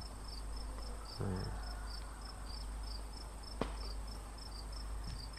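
Faint insect chirping, an even repeating high chirp, with a single sharp click a little past halfway.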